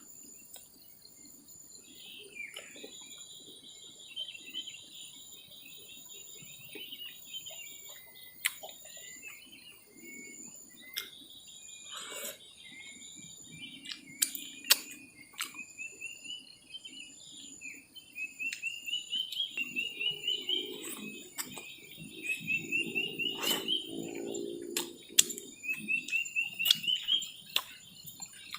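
Tropical forest ambience: insects buzzing steadily at a high pitch while birds chirp and sing repeated short rising trills. Scattered sharp clicks and knocks run through it, and about two-thirds through comes a few seconds of rhythmic scuffing or rustling close by.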